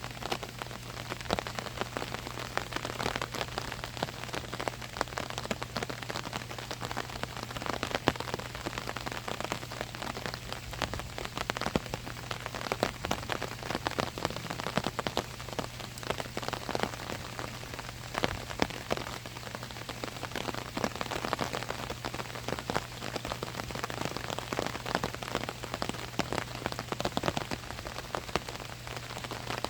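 Rain falling steadily on an umbrella overhead, a dense stream of individual drop hits on the fabric over a continuous wash of rainfall.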